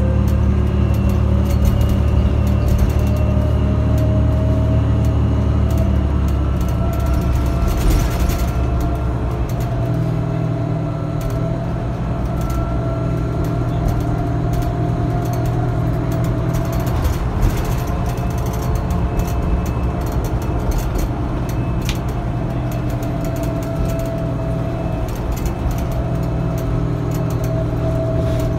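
Cabin of a 2009 New Flyer DE62LFA diesel-electric hybrid bus under way: the Allison EP-50 hybrid drive gives a whine that rises in pitch at the start and then holds steady, over the Cummins ISL diesel and road rumble. The low rumble is heavier in the first six seconds or so, then eases.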